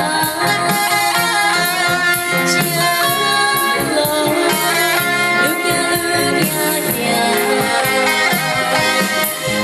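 Live band playing a Mandarin pop song, with a singer's voice over the accompaniment.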